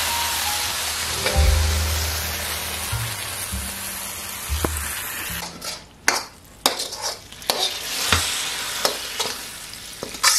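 Beef and mixed vegetables sizzling in a hot wok while a spatula stirs them. About five seconds in the sizzle gives way to scattered scrapes and clinks.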